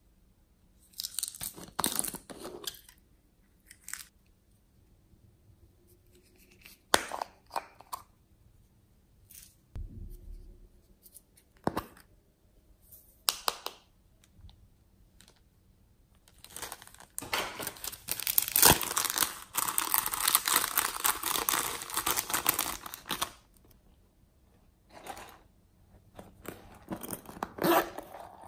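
Plastic toy containers being opened and handled over a tray of slime, with small beads and glitter tipped in: scattered clicks and short rattles, a dense rustling stretch of about six seconds in the middle, and a zipper pulled near the end.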